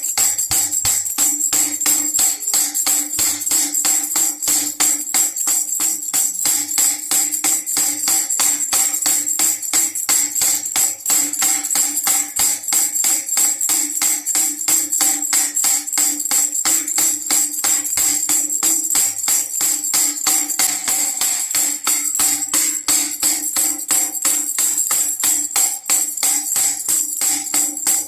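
Baby rattle shaken fast and steadily without a break, in an even rhythm over a steady low tone.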